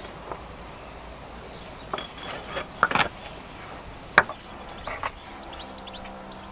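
Several sharp metallic clinks and knocks as the rear brake caliper and hub parts are handled, the loudest about three and four seconds in. Near the end an insect starts buzzing close by.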